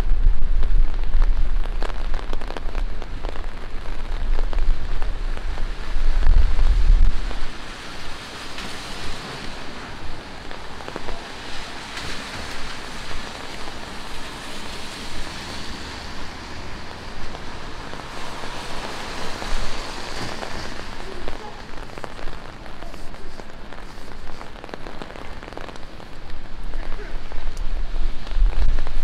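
Steady rain falling and splashing on a wet city street. A deep low rumble runs under it for the first seven seconds or so, then drops away, leaving the even patter.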